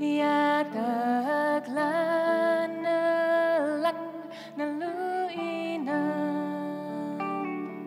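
A woman singing a folk melody with gliding, held notes over a plucked sape, the Bornean lute, with steady sustained tones from the backing band underneath.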